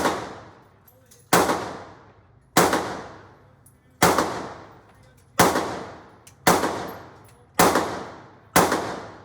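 Gunshots at an indoor range, fired singly about once a second, about eight in all, each followed by a long echoing decay.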